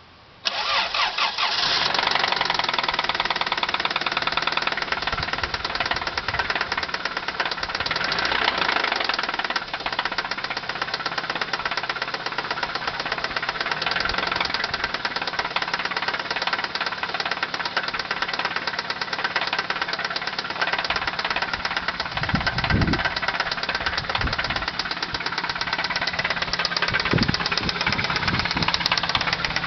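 Toyota Celica GT engine starting about half a second in, then running with a rapid, steady knock. The knock comes after the engine ran low on oil, having burned through all of it in a month; fresh oil has not quieted it.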